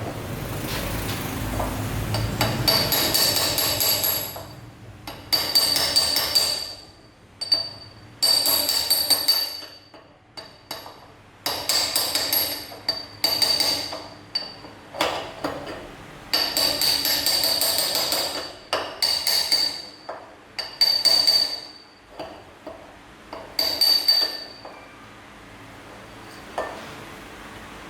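Hammer blows on the steel bearing cups in the steering head of a Honda Dream motorcycle, as the races are driven out or in. The blows come in about seven runs of rapid strikes with a high metallic ring, separated by short pauses, and stop a few seconds before the end.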